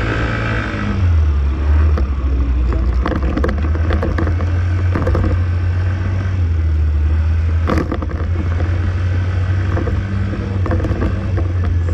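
Wind buffeting the microphone over a scooter's engine and road noise while riding at moderate speed, a steady low rumble with scattered light rattles and clicks.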